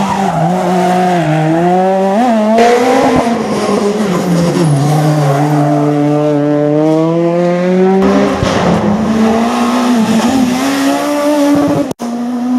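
Rally car engines at full throttle on a special stage. The pitch climbs through each gear and drops on the shifts and lifts. The sound cuts out for an instant near the end.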